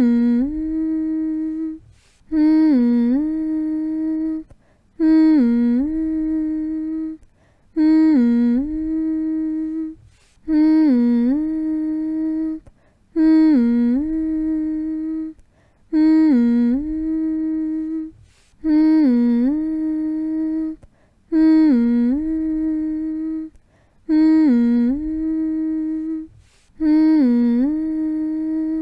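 A person humming a lullaby: the same short phrase over and over, about every two and a half seconds. Each phrase opens with a quick dip in pitch and then holds one steady note, with a short breath-length gap between phrases. It is a monotone humming meant to soothe a baby to sleep.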